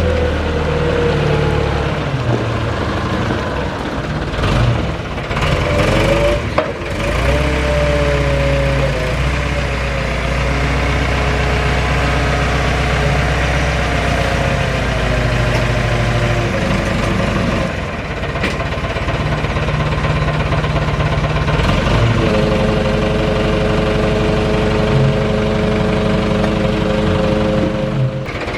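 A JCB 3C Mk3 backhoe loader's diesel engine running steadily. Its speed shifts about five to seven seconds in and steps up again about 22 seconds in, with a few sharp knocks along the way.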